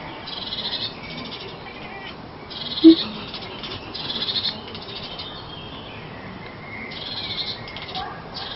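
Tabby cat chattering at birds: four short bouts of rapid, high-pitched twittering, with one brief, louder low note about three seconds in.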